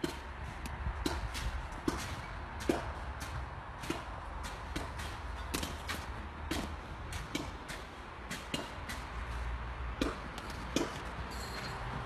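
Irregular sharp clicks and cracks of ice, about one or two a second, over a steady low rumble.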